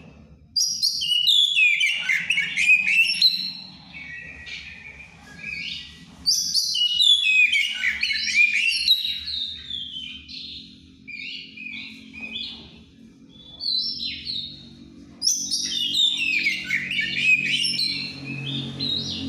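Oriental magpie-robin (kacer) singing in three loud bouts of rapid, varied whistled and chattering phrases, with softer notes between. Its keeper calls it over birahi, in excessive breeding condition.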